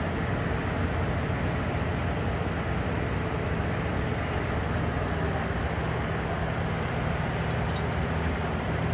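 Several pickup trucks idling together, a steady low engine hum under a constant wash of noise.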